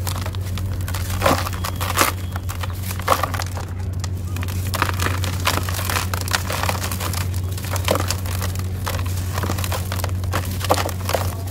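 A dry, dusty, gritty slab crushed and crumbled by hand in a plastic tub: irregular gritty crunches, with a few sharper cracks as pieces break off. A steady low hum runs underneath.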